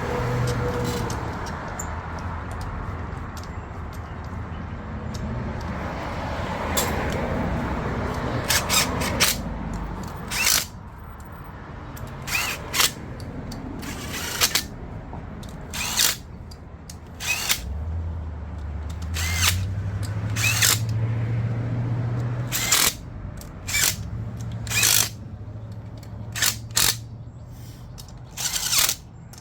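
Cordless power driver running camshaft bearing-cap bolts down on a Ford 5.4 two-valve cylinder head, in many short trigger bursts about a second or two apart.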